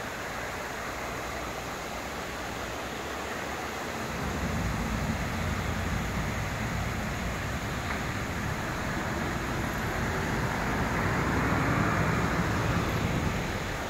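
Fountain jets spraying and splashing into the basin, a steady rushing of water that grows louder about four seconds in and again near the end.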